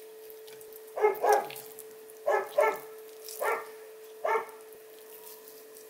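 A dog barking six times in short calls, mostly in quick pairs, over a steady electrical hum.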